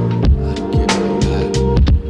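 Background music with a steady beat: electronic drums and bass under sustained notes.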